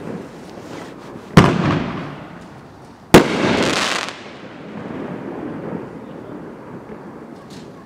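Dominator Devil's Fury 1.4G consumer fireworks cake firing two aerial shells that burst with loud bangs less than two seconds apart. Each bang trails off over about a second as the silver stars spread and fade, leaving a faint fading sizzle.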